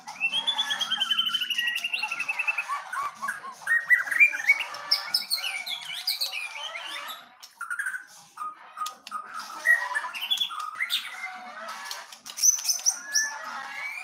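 White-rumped shamas singing: a varied song of whistles, trills and rapid chirps, opening with a long falling trill.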